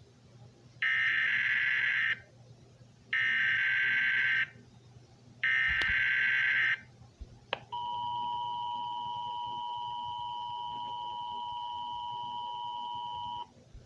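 Emergency Alert System header: three short bursts of SAME digital data screech, each a little over a second long, then the steady two-tone attention signal holding for about six seconds.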